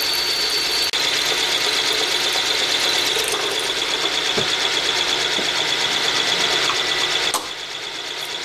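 A drill bit turning in a machine spindle cuts through an aluminum part, drilling a 5/16-inch tap-drill hole all the way through: a steady grinding cut with a high whine. About seven seconds in there is a sharp click, the cut ends and the sound drops to a quieter run.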